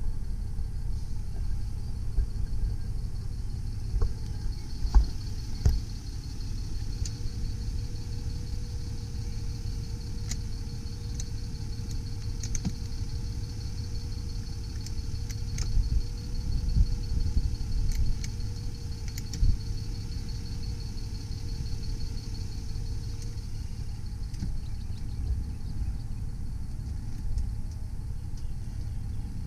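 Electric motor of the power driver's seat whining steadily while the seat is adjusted, starting about five seconds in and stopping a few seconds before the end, with a few clicks near the start. Under it runs the low, steady rumble of the idling V6 turbo diesel engine.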